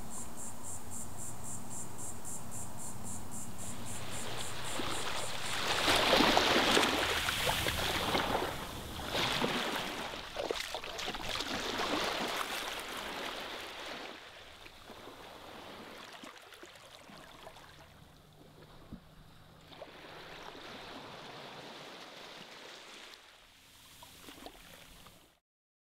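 Insects chirping in a high, rapid, even pulse, then rushing water that swells loudest about six seconds in and fades, cutting off just before the end.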